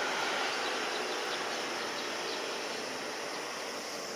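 Distant jet airliner noise slowly fading away, a steady rushing sound without a clear pitch.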